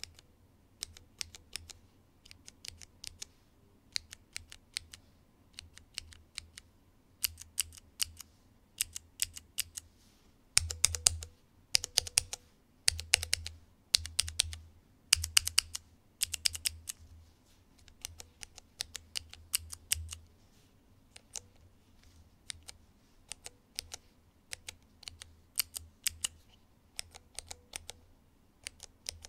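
Cherry MX mechanical key switches pressed over and over in quick runs, giving sharp clicks and clacks at varying force and speed. The presses are louder and heavier, with a deeper thud, through the middle stretch.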